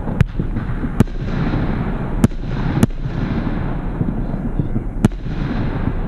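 A 20-shot, 30 mm calibre F2 firework battery (Heron PSP 1-21) firing: five sharp bangs of shells bursting at uneven intervals over a steady noisy background.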